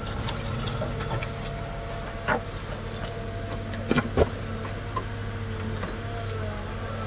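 CAT M314 wheeled excavator's diesel engine running steadily, with steady whining tones over it. A few sharp knocks as the bucket works the soil: one about two seconds in and a close pair about four seconds in.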